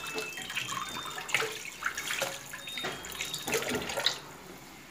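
Water splashing and sloshing in a plastic basin as hands wash fish heads and scraps, in short irregular splashes that die down about four seconds in.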